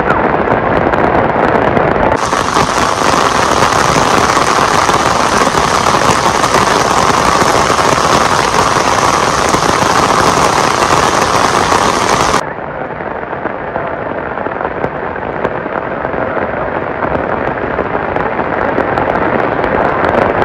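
Heavy rain pouring onto wet pavement: a loud, dense hiss full of crackling splashes. About two seconds in it turns abruptly brighter, and a little past halfway it abruptly drops quieter and duller.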